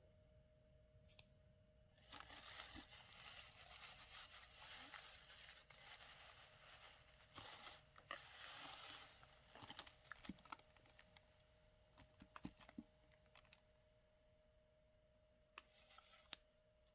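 Faint rustling and tearing of paper or plastic packaging for several seconds, then a scatter of light clicks and taps, and a short rustle near the end.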